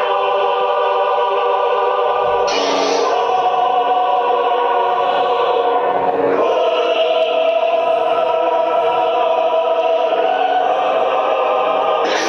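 Choral music: a choir holding sustained chords, which change about two and a half seconds in and again about six seconds in.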